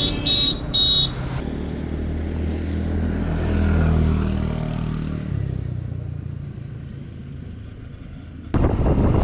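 Three short honks of a vehicle horn, then a motorcycle engine running on the move with road and wind noise, its hum swelling and then fading. About eight and a half seconds in, the sound jumps suddenly to louder wind and engine noise.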